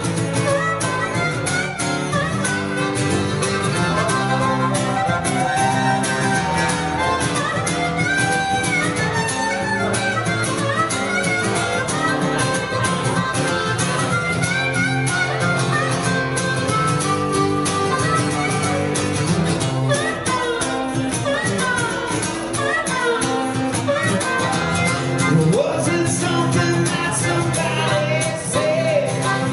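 Harmonica playing a lead line of sliding, wavering notes over acoustic guitar accompaniment.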